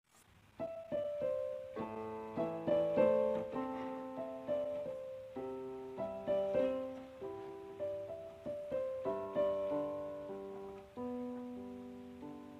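Gentle background piano music: a slow melody of single struck notes and chords, each ringing out and fading. It starts about half a second in and tails off near the end.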